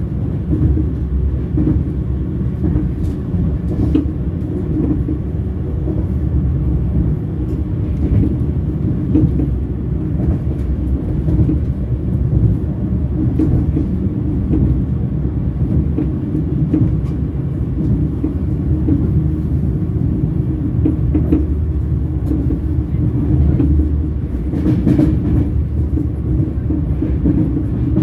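Train wheels rolling on rails: a steady low rumble, with faint clicks here and there.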